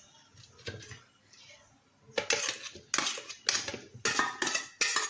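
Chopped tomatoes, garlic and hot pepper being tipped from a metal bowl into a plastic blender jar of onion chunks. From about two seconds in, a run of sharp clattering knocks, several a second, as the bowl and ingredients hit the jar.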